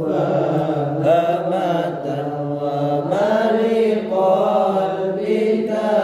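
A group of male voices chanting sholawat, Arabic devotional praise of the Prophet, together in unison in long drawn-out melodic lines, the pitch stepping up about three seconds in.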